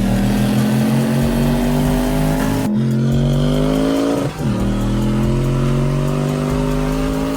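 Car engine pulling hard at full throttle, its pitch climbing steadily and dropping at two upshifts, about three seconds in and again about four seconds in.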